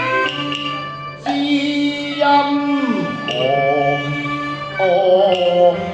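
Cantonese opera music: a melody held on long notes that slides downward and then wavers in pitch, over a sustained lower line, with a few light percussive taps.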